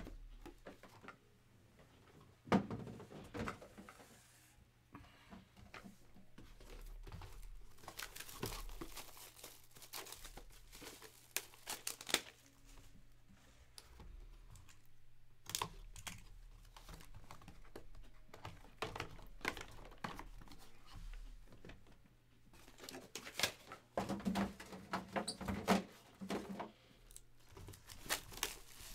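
Sports card boxes (2020 Topps Museum Collection) being handled on a table: scattered knocks and taps of cardboard boxes set down and moved, with plastic wrapping crinkling.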